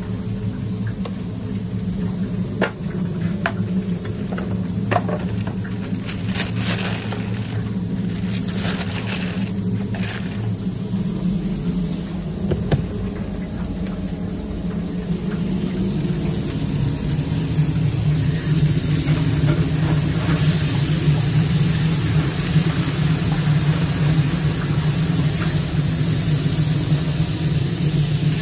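A steady low hum of running kitchen equipment with a few clinks and knocks in the first half, then food sizzling on a griddle from about halfway through, the sizzle building and holding.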